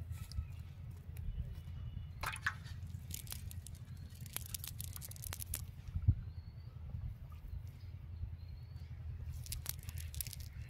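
Rustling and crackling of a cast net's mesh being handled and picked through by hand, with scattered small clicks and a knock about six seconds in, over a steady low rumble.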